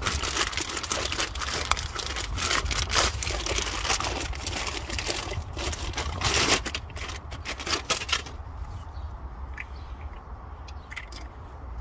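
Plastic packaging bag crinkling and rustling as a new anti-roll bar drop link is unwrapped. The rustling dies down about eight seconds in, leaving a few light clicks.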